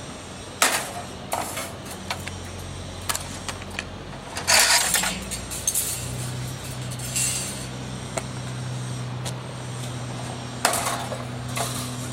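Cutters snapping through the shipping bands on a snowplow's skid, a series of sharp snaps and clatters with a louder rustling burst about four and a half seconds in. A tractor engine idles steadily underneath, its hum getting stronger about halfway through.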